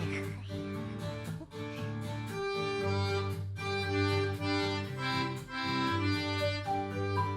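Background music: a bouncy tune of held reedy notes over a repeating bass line, with light percussion ticking in a steady beat.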